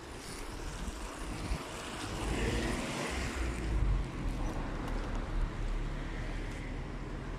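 Wind buffeting the microphone with a low rumble, a broader rush of noise swelling and fading a couple of seconds in.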